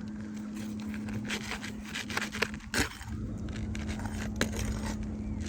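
Scraping and sharp clicks of an asphalt roof shingle being worked loose from its seal and nails, over a steady low hum.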